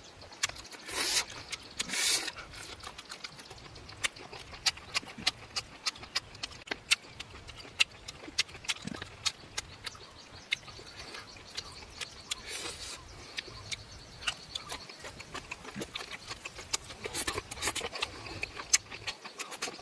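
Close-up eating sounds: chewing and lip-smacking on fried squid, a steady run of sharp wet clicks. A few breathy puffs of air come about a second in and again near the end.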